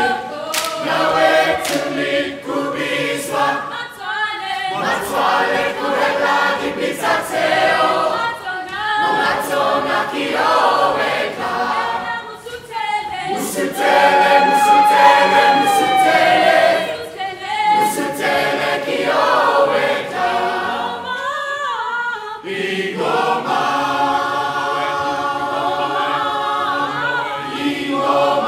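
A large mixed-voice student choir singing together, largely a cappella, with sharp percussive hits now and then. For a few seconds near the middle, a single voice stands out above the group.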